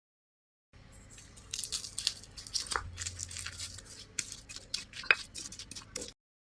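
Kitchen food-preparation handling noise: a run of quick, irregular scraping and crinkling strokes with two sharp clicks, starting after a short silence and cutting off abruptly near the end.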